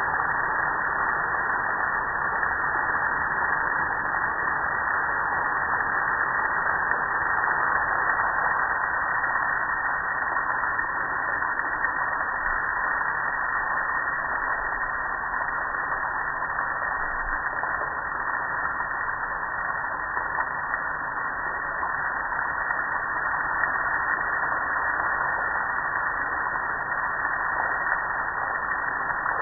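Water spraying steadily from a garden hose nozzle onto a gas grill's metal lid and cabinet, an unbroken rush of spray and splashing.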